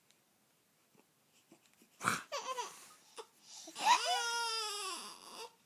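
Young child's wailing cry: a short cry about two seconds in, then a longer, louder wail that rises briefly and slowly falls in pitch.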